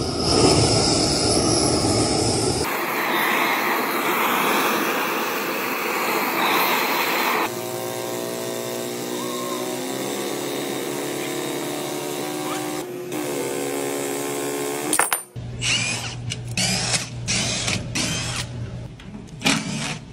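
Gas torch hissing steadily as it heats a pump-motor shaft coupling. After cuts come other steady shop noise, and then a cordless impact driver running in a quick series of short bursts as it backs screws out of the motor's sheet-metal cover.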